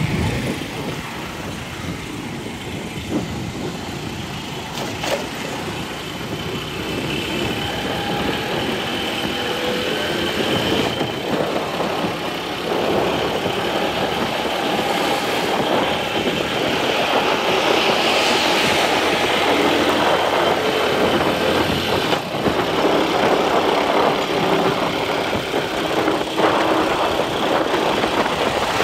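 Motorcycle engine and road noise on a moving ride, steady throughout and slowly getting louder over the first half.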